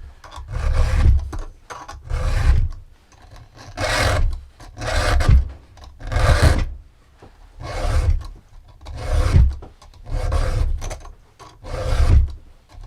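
A chainsaw file being drawn by hand across the cutters of a Husqvarna T545 top-handle chainsaw's chain. It makes about nine rasping strokes, roughly one every second and a half.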